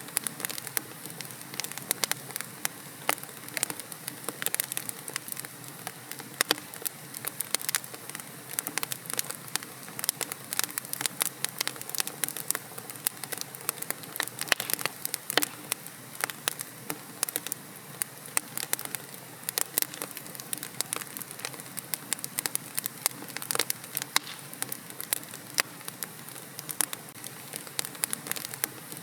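Wood fire in a fireplace crackling steadily, with dense, irregular sharp pops and snaps over a soft hiss.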